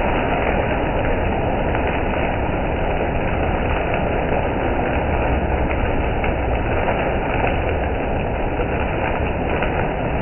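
Automatic conveyor car wash running: rotating side brushes scrub a wet car while water sprays over it, a loud, steady mechanical wash noise.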